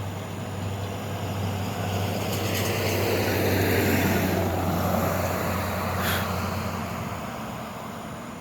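A road vehicle driving past, growing louder to a peak about four seconds in and then fading away, over a steady low hum that stops near the end. A short sharp click comes about six seconds in.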